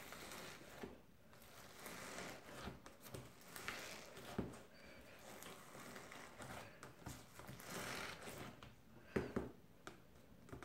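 Fingers squishing and mixing black slime with styrofoam beads in a plastic tub: faint, irregular sticky clicks and crackles, with one sharper pop about nine seconds in.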